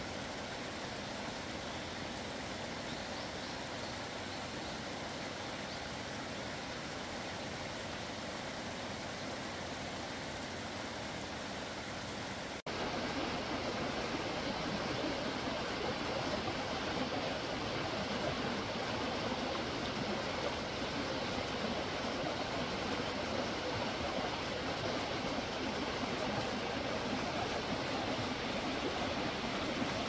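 Steady rushing of a mountain stream's running water. It cuts out for an instant about a third of the way through and comes back slightly louder.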